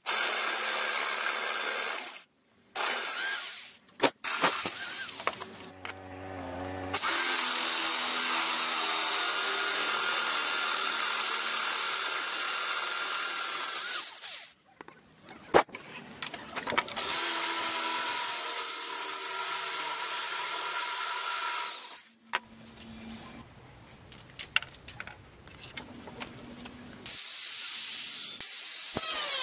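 Electric drill with a large twist bit drilling through a steel bar, a steady motor whine in several stretches broken by abrupt cuts. Near the end an angle grinder starts up with a rising whine.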